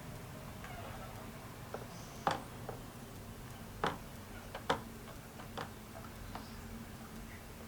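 Irregular light clicks and taps, three of them sharper, over a faint steady low hum.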